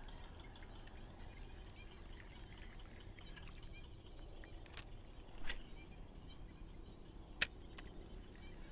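Faint outdoor chorus of insects and birds chirping, over a steady high insect drone. A short noise comes about five and a half seconds in, and a single sharp click about two seconds later.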